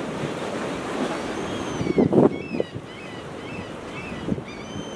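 Wind buffeting the microphone over surf washing against rocks, with a louder gust-like rush about two seconds in and faint, short high chirps over the second half.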